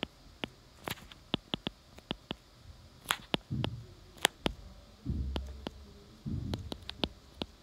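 Stylus tapping and scratching on a tablet screen while handwriting notes: irregular sharp clicks, two or three a second, with a few short low rubbing sounds in the second half.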